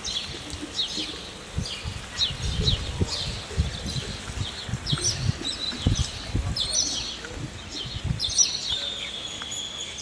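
Small birds chirping and trilling repeatedly in quick short notes, with a longer trill near the end, over uneven low bumps and rumbles.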